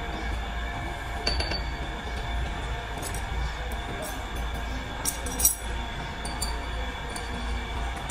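Steel parts and tools clinking against a metal lathe's four-jaw chuck as a workpiece is handled at the stopped chuck: a few sharp clinks, one about a second in and the loudest just past the middle, over a steady workshop machinery hum.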